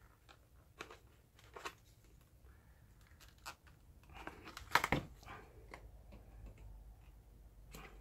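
Utility knife cutting and prying at a hard plastic blister pack: faint scattered scrapes and crackles of the plastic, with a louder crack a little before five seconds in.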